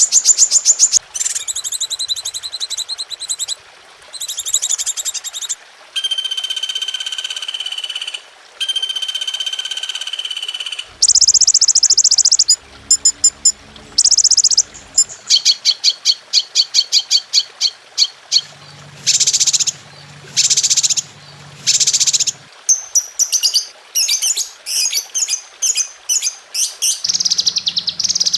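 A chain of recorded songbird calls spliced one after another as masteran, the training audio played to cage birds to teach them songs. It runs through high rapid trills, steady whistled notes and quick chirp series, and each clip cuts off abruptly into the next every one to three seconds.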